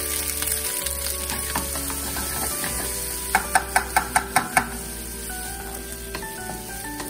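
Sliced onions sizzling in olive oil in a nonstick frying pan as they are stirred with a wooden spatula. About halfway through there is a quick run of about six knocks of the spatula against the pan.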